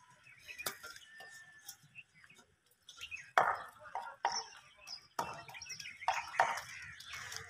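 Light clinks of a steel tray as spices are tipped off it into a large aluminium cooking pot. From about three seconds in come several loud, short, harsh sounds, one after another.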